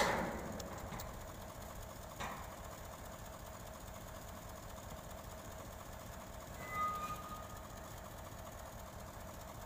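Boom truck's engine running steadily, driving the crane as it hoists a large steel floater. A metallic clank right at the start, a lighter knock about two seconds in, and a short high squeal about seven seconds in.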